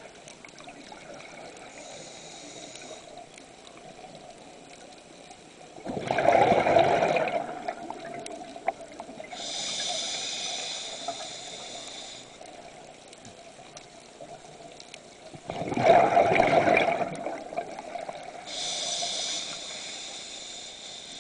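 Scuba diver breathing through a regulator underwater: two loud rushes of exhaled bubbles about ten seconds apart, each followed a few seconds later by the thin, high hiss of an inhalation through the demand valve.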